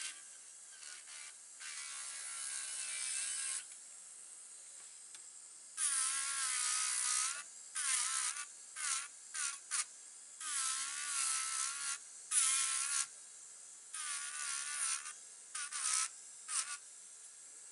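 Electric nail drill (e-file) with a bullet-shaped bit whining in about nine short bursts as it files a nail tip, its pitch wavering up and down within each burst.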